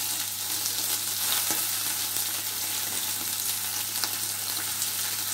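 Tuna steaks frying in oil and butter with chillies in a frying pan: a steady sizzle with a few sharp pops of spitting fat, as a wooden spatula turns the steaks.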